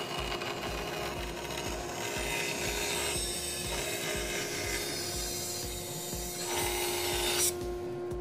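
Grizzly bandsaw cutting a thin strip from a block of ebony: a steady motor hum under the rasping hiss of the blade in the dense wood. The cutting noise stops sharply about a second before the end as the cut finishes, leaving the saw humming.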